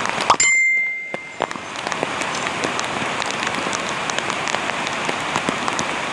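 Rain falling steadily, with many separate drops striking close by. About half a second in, the rain sound drops out for roughly a second while a short, steady high tone sounds.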